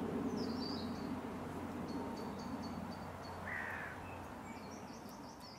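Small birds singing and chirping in short repeated high notes, with a single lower, harsher call about three and a half seconds in, over a steady low background rumble. The whole sound fades down near the end.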